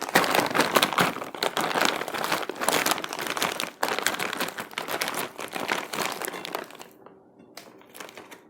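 Plastic packaging crinkling and rustling as it is handled, dense and irregular for about seven seconds, then dying away to a few faint rustles.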